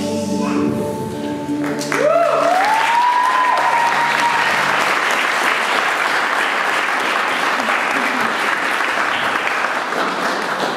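Music with held notes, then about two seconds in a crowd breaks into applause, with one rising whoop of a cheer early in the clapping.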